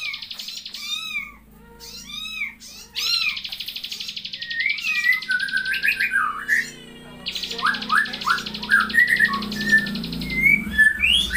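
High-pitched animal calls: many short arched squeaks and quick rising chirps, over runs of a fast buzzing trill that each last a few seconds and stop and start again.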